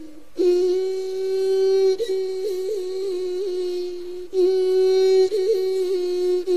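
Intro music: a single wordless melody of long held notes with quick little turns between them, with a new phrase starting about four seconds in.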